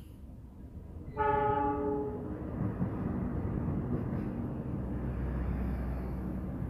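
Diesel locomotive sounding its horn in one short blast about a second in, then the train running past with the heavy rumble of the engine and wheels on the rails, growing deeper near the end as the commuter cars roll by.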